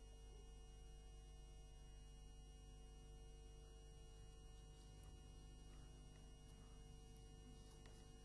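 Near silence: a faint steady electrical hum, with a few faint clicks in the second half.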